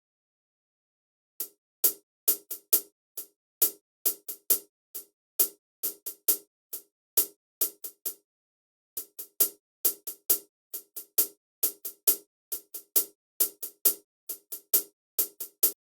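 Hi-hat sample hits played on their own, triggered by sound replacement from a drum loop's hi-hat track. The hits come about three a second in an uneven groove, some louder than others, and now follow the loop's hi-hat pattern.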